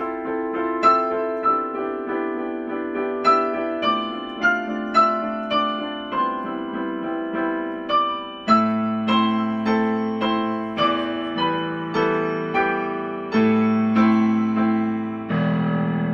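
Slow, gentle solo keyboard music with a piano tone: a melody of single struck notes over held chords, each note fading after it is struck, with deeper bass notes coming in about halfway through.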